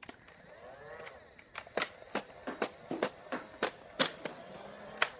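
A string of sharp, irregular clicks and taps close to the microphone, about a dozen over the few seconds, with faint voices in the background about a second in.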